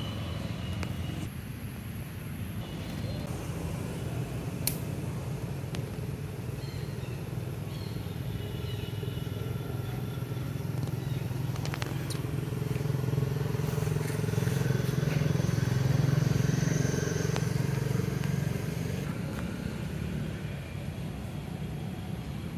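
Low, steady engine hum, growing louder about two thirds of the way through and easing off again near the end.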